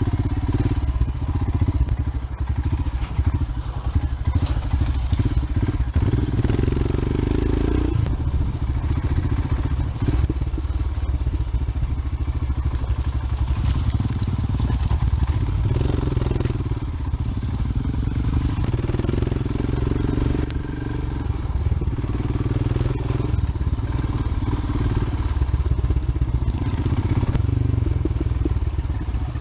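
Royal Enfield Himalayan's single-cylinder engine running on a dirt trail, the pitch rising and falling as the throttle opens and closes, over a steady low rumble.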